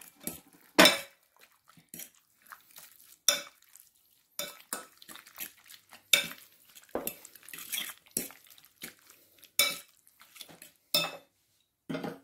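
Metal fork clinking against a glass mixing bowl while stirring raw chicken strips through beaten egg, in irregular taps and scrapes, some strikes ringing briefly.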